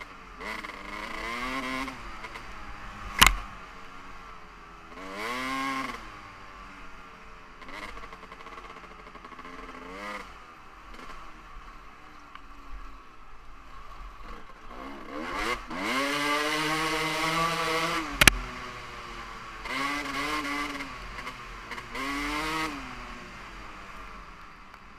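2015 Kawasaki KX450F's single-cylinder four-stroke engine on a woods motocross track, blipped through repeated bursts of throttle that rise and fall in pitch, dropping back to a lower off-throttle sound between them. Two sharp loud knocks come through, about three seconds in and again near the eighteen-second mark.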